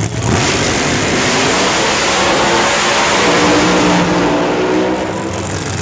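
Drag racing car at full throttle, loud and dense, with its pitch dropping from about four seconds in as it passes by.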